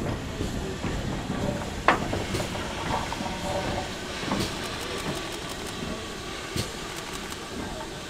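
Steam locomotive running light past and moving away, with its wheels clicking over rail joints and a hiss of steam. A sharp metallic knock comes about two seconds in.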